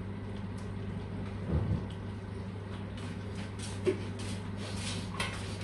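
Thick rendang sauce bubbling and spluttering in the pot, with irregular little pops in the second half, over a steady low hum and a soft thump about a second and a half in.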